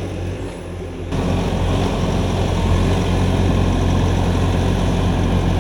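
Skid steer's diesel engine working under load, throttling up about a second in and holding a steady, loud drone.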